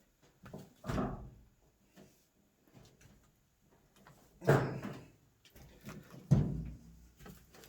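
Sheet-metal dryer top panel being pried loose with a multi-tool: a few dull clunks and knocks, the loudest about halfway through.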